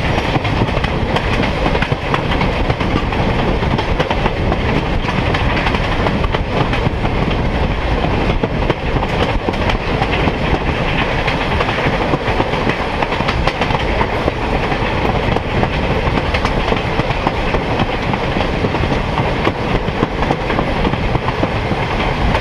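Railroad car's wheels rolling steadily along the track: a continuous loud rumble with a fine rattle running through it.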